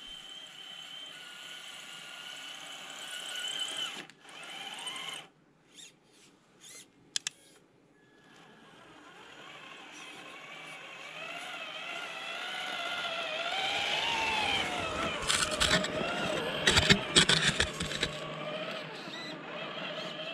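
Traxxas TRX-4 RC crawler's electric motor and gearbox whining, the pitch rising and falling with the throttle and cutting out briefly a few times between about four and eight seconds in. The whine grows louder as the truck comes close, and a flurry of sharp crunches and knocks from the tyres in the snow, near the end, is the loudest part.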